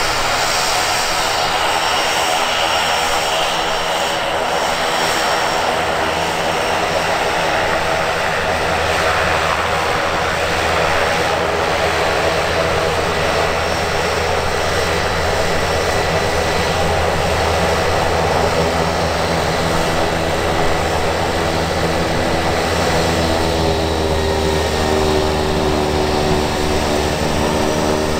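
Cessna 208B Grand Caravan EX's Pratt & Whitney PT6A-140 turboprop running steadily, a turbine whine over a propeller drone. Near the end the tone bends and shifts.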